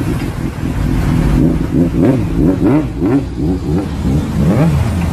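Sport motorcycle engine revved in quick repeated blips, its pitch rising and falling about three times a second.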